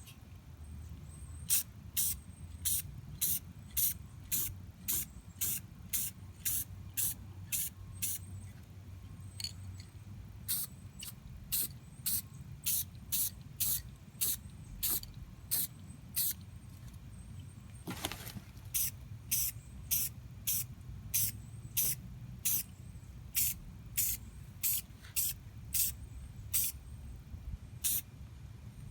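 Aerosol can of gloss clear coat sprayed in short, quick hissing bursts, about two a second, with brief breaks about ten seconds in and again near eighteen seconds, over a steady low rumble.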